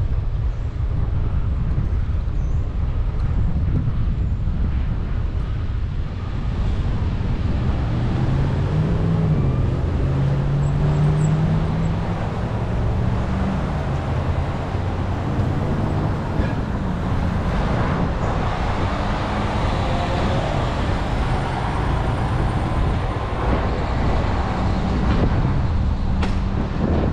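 Street traffic heard from a moving bicycle, with low wind rumble on the microphone throughout. About a third of the way in, a motor vehicle's engine rises and falls in pitch for several seconds.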